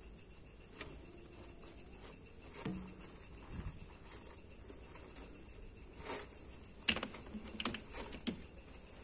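Scattered small clicks, taps and scratches from baby water monitors' claws and bodies scrabbling over bark-chip substrate and driftwood as they tussle over a mouse, the sharpest few coming close together near the end. Underneath runs a faint, steady, high-pitched whine.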